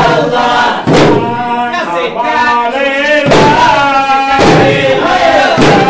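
A group of men chanting together in a drawn-out melodic line, with loud unison strokes on hand-held frame drums (dafs) about once a second.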